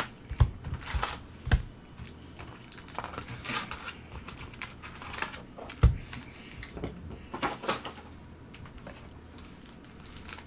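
Cardboard card boxes and card packs being handled with gloved hands: scattered taps, knocks and rustles, with the loudest knock about six seconds in.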